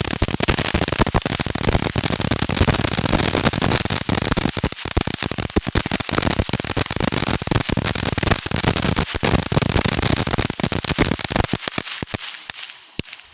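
Lit consumer ground firework going off: a steady hiss packed with rapid sharp crackles and pops, fading out about twelve seconds in.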